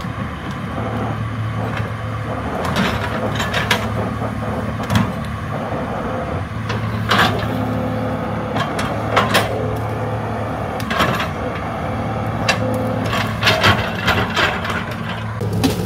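Hydraulic excavator's diesel engine running steadily and swelling in stretches as load comes on. Irregular sharp knocks and clanks come from the machine at work.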